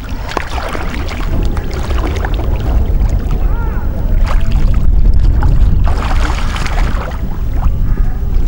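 Wind rumbling on the microphone over water splashing and lapping as a snorkeller slips into a lake and swims away. The wind grows stronger about halfway through.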